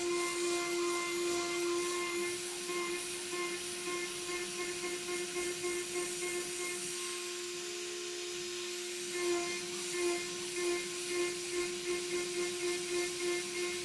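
CNC router spindle milling aluminium with an end mill: a steady spindle whine with cutting noise that swells and fades in regular pulses, faster and more even, about two a second, in the second half.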